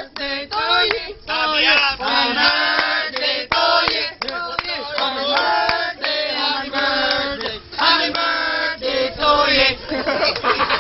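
A group of voices singing together, with some hand clapping.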